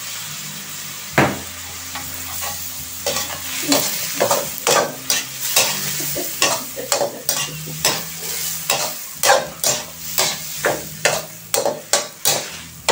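Shrimp, garlic and ginger sizzling in a hot metal wok while a slotted metal spatula stirs them, scraping and knocking against the pan. The strokes come one or two a second from about three seconds in, after a single strong knock just over a second in.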